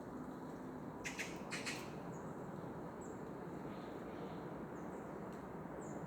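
Small bird giving short, high, falling chirps every second or so, over a steady low background rumble. A short burst of crackling comes about a second in.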